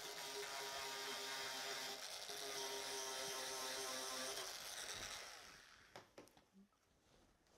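Handheld rotary tool with a sanding drum whirring steadily as it abrades the paint off a plastic car bumper. It winds down and stops about five seconds in, followed by a few light clicks.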